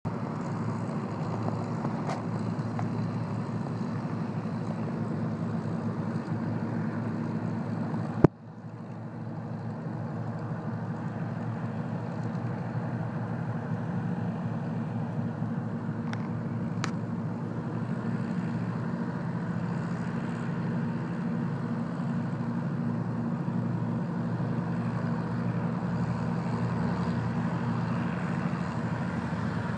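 P-51 Mustang's V-12 piston engine running steadily as the fighter taxis, a low even drone. There is a sharp click about eight seconds in.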